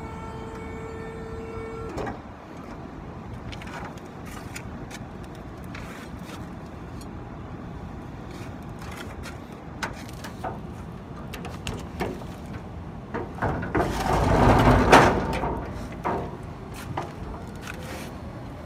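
Aerial work platform's electric drive motor humming steadily as the basket is moved from its control box, stopping about two seconds in. Scattered clicks and knocks of metal follow, with a louder rushing noise swelling and fading around two-thirds of the way through.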